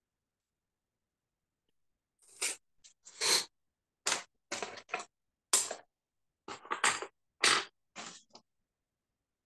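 Pencil writing on paper, a series of about ten short scratching strokes that begin about two seconds in.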